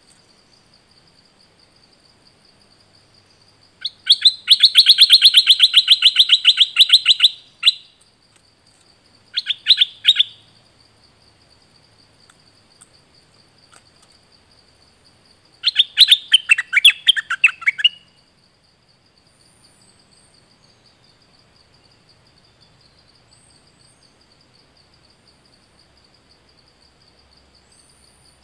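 Stripe-throated bulbul singing in three bursts of rapid repeated notes: a long phrase of about four seconds, a short one about a second long, then another of about two seconds. A faint steady high buzz runs underneath.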